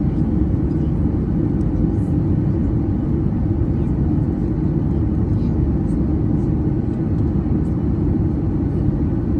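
Cabin noise inside a Boeing 737-800 taxiing: a steady low rumble of its CFM56-7B engines at low power, heard through the fuselage.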